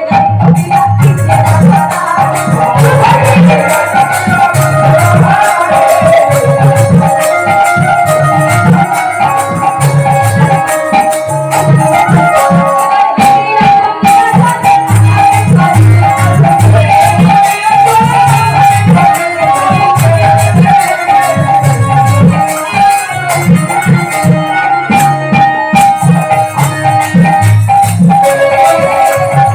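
Kirtan music: drum beats under a steady held melody line, with continuous jingling percussion.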